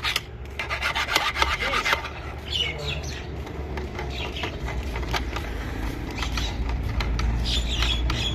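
Hand tools scraping and clicking against metal clutch parts, thickest in the first two seconds and then scattered, over a steady low hum.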